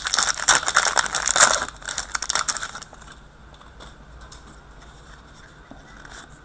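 Crinkling and rustling of a foil hockey-card pack wrapper being handled, dense and crackly for about the first three seconds, then dying down to faint handling of cards.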